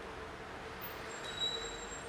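Steady street background noise with a constant low hum, and a thin high-pitched squeal that starts just past the middle and holds for about a second.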